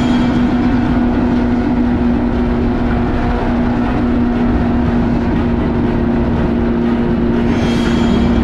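Kawasaki STX-15F jet ski's four-stroke four-cylinder engine running at a steady high speed, about 100 km/h, with wind and water rushing past. A brief hiss comes in near the end.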